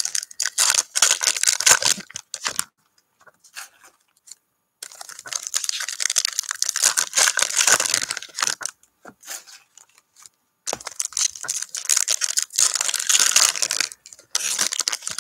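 Foil wrapper of an NBA Hoops basketball card pack being torn open and pulled apart by hand, crinkling and tearing in three bouts a few seconds long with short pauses between.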